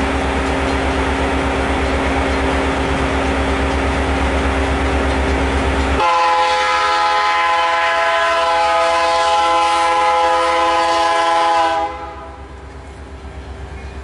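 CN train passing close: a heavy low locomotive rumble, then the locomotive's air horn sounds one long chord of several notes for about six seconds and stops abruptly. After it, the quieter rumble of the train rolling by with a faint regular clatter.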